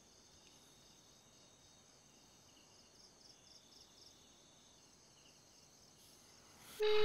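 Faint night ambience of crickets chirping in an even, repeating pattern. Near the end a telephone ringing tone starts in the handset as a call goes out.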